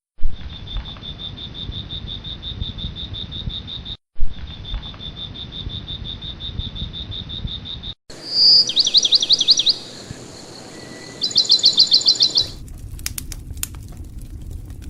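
Night insects trilling, a steady, fast-pulsing high chirr. About eight seconds in come two louder bursts of rapid high chirps. Near the end, a campfire crackles.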